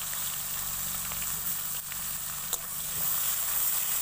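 Sliced onions sizzling as they fry in hot oil with whole cumin seeds in a kadai. Small scattered pops, with one sharper crackle about two and a half seconds in.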